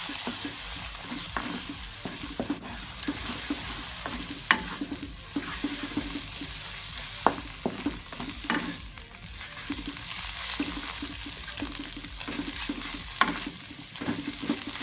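Eggs scrambling in hot margarine in a nonstick wok: a steady sizzle under the scraping, stirring strokes of a spatula, with a few sharp knocks of the spatula against the pan.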